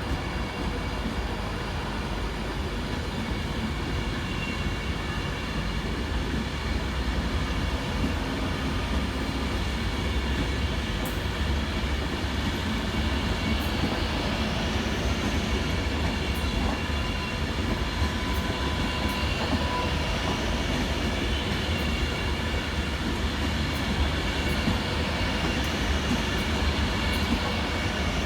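Class 390 Pendolino electric train pulling out of the station: a steady rumble of wheels on rails, with a few faint rising whines as it picks up speed.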